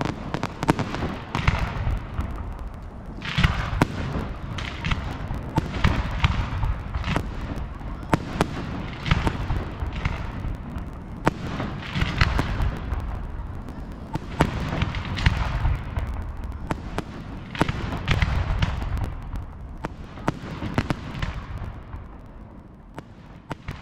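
Fireworks display: a dense, continuous barrage of bangs and crackling with deep booms, thinning out near the end.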